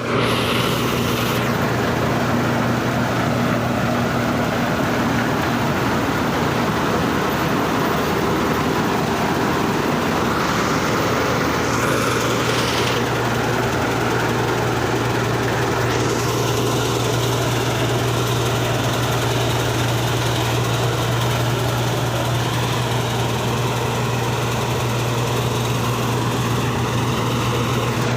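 Combine harvester's engine running steadily with a continuous low hum, the machine's noise shifting a little in the upper range partway through.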